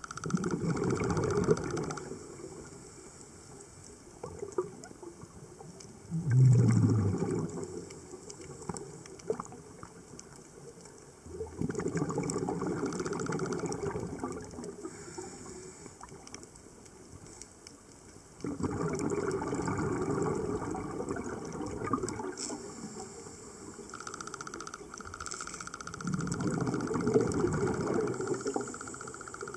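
Scuba regulator breathing heard underwater: five exhalations, each a rush of noisy bubbles lasting a few seconds, spaced several seconds apart with quieter gaps between.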